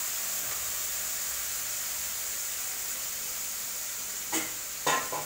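Boiled, drained vegetables sizzling in hot oil in a kadai on high flame: a steady hiss that eases slightly as the wet vegetables settle. Two short knocks come near the end.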